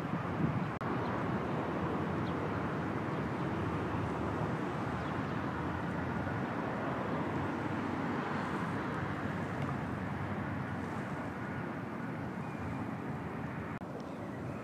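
Steady, continuous noise of road traffic, without distinct single events.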